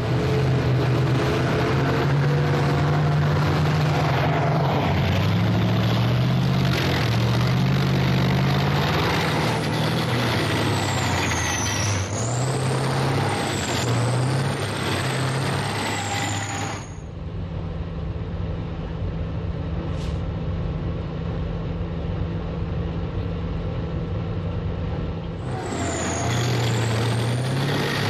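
A 2S1 Gvozdika tracked self-propelled howitzer driving: its diesel engine runs hard, the pitch stepping up and down, over a loud noise of the running gear, with a high squeal sweeping up and down in places. About two-thirds through it drops to a quieter, steadier drone with a single click, then rises again near the end, the squeal returning.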